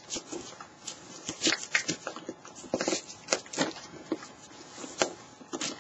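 Scattered short rustles and soft clicks of a foam armor hand plate being handled and pressed on with velcro strips.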